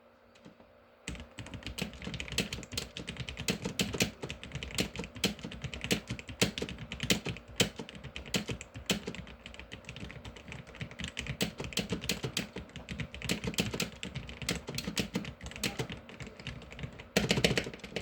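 Typing on a Wormier K61 60% mechanical keyboard with Gateron Yellow linear switches, freshly lubed, with the stabilizers still unlubed: a quick, irregular run of keystroke clacks that starts about a second in and grows into a louder, denser flurry near the end.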